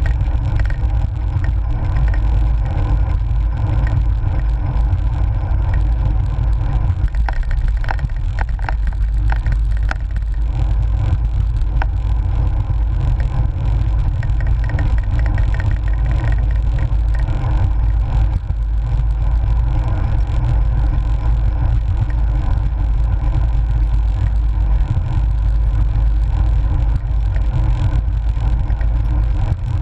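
Wind buffeting the microphone of a GoPro on a moving bicycle's handlebar mount: a loud, steady low rumble with road and tyre noise over it, and a few brief rattles about a quarter of the way in.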